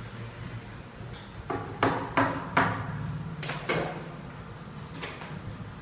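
A run of sharp knocks. Three loud ones come close together about two seconds in, with fainter ones before and two more spaced out after.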